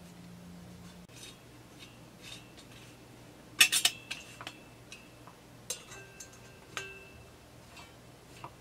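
Light metallic clinks and taps of a metal muffler plate and M6 bolts being handled and fitted against a chainsaw cylinder's exhaust port. A quick cluster of clinks about three and a half seconds in is the loudest, followed by a few single taps that ring briefly.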